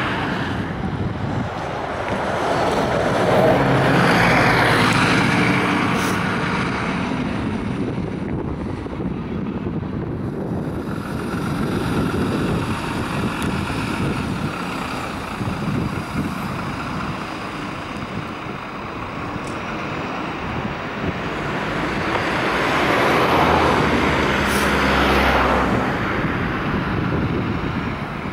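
Two vehicles passing by, each swelling and fading over a few seconds with an engine hum, the first about four seconds in and the second near the end, over continuous traffic noise and wind on the microphone.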